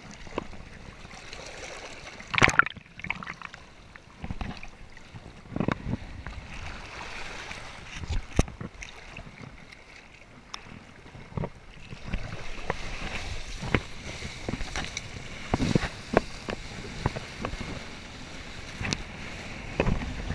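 A kiteboard skimming over choppy sea water: a steady rush of water and wind, broken by irregular sharp slaps and splashes as the board hits the chop, busier from about halfway through.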